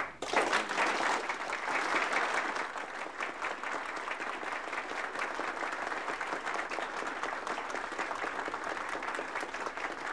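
Audience applauding. The clapping starts suddenly, is loudest in the first few seconds, then carries on steadily.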